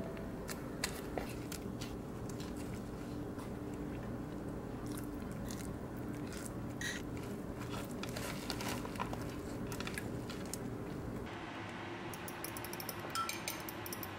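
Hands working a bamboo rolling mat over a seaweed rice roll, with small clicks and crackles from the mat and sticky rice. About 11 seconds in, a fork whisking eggs in a glass bowl, a quick run of light ticks against the glass.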